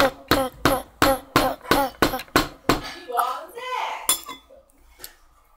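Rapid knocking to break up the hardened, microwaved sweet in its dish: about nine sharp strikes, roughly three a second, each with a short clinking ring, then one more knock a little later.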